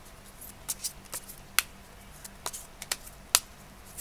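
Tarot cards being shuffled by hand: a string of irregular crisp card clicks and snaps, two of them much sharper than the rest, about a second and a half in and again past three seconds.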